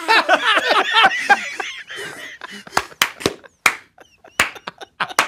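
Laughter, then a run of short, sharp, irregular clicks or knocks, about half a dozen in the last few seconds.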